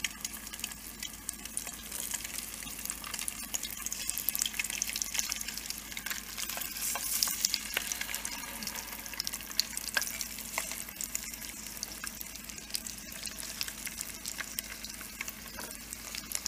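Halved hard-boiled eggs shallow-frying in hot spiced oil in a nonstick pan over a medium flame: a steady sizzle full of small crackling spits. More halves are set into the pan one by one as it goes.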